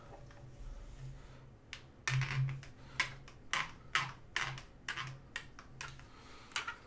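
Hard plastic clicking and clacking from a 3D-printed PETG clamp being handled and worked: a run of short, sharp clicks, a few a second, starting about two seconds in.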